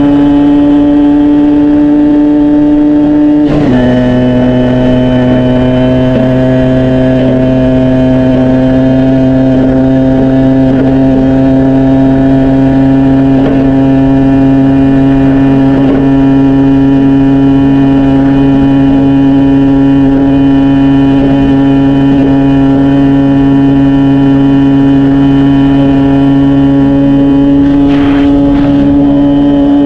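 Honda 50 cc two-stroke single-cylinder motorcycle engine running. Its pitch drops suddenly about three and a half seconds in, then climbs slowly and steadily.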